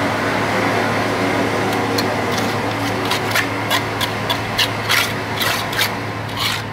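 Steady rasping, scraping noise of cement being worked around a PVC pipe, with irregular sharp clicks and taps, a few a second, from about two seconds in.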